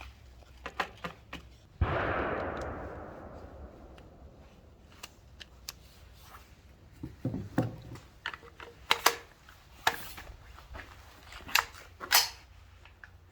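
.22 LR rifle firing a single 42-grain Gemtech round made for suppressed guns, about two seconds in; the report trails off over about two seconds. Scattered short clicks and knocks follow.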